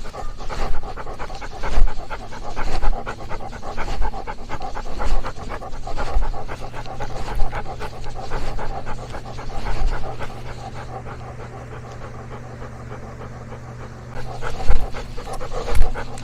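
Senior dog panting steadily, heard close up from a camera on his harness, easing off about two-thirds of the way through and picking up again near the end.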